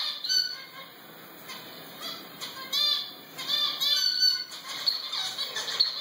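Zebra finches calling: a series of short call notes, several in quick succession around three to four seconds in and more through the second half.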